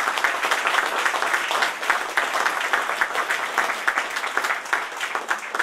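Audience applauding, dense clapping that slowly thins and fades toward the end.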